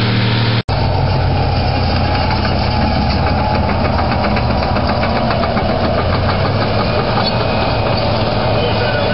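Heavy diesel machinery engine running steadily. It breaks off sharply a little under a second in, then a different engine note carries on with a fast ticking clatter through the middle.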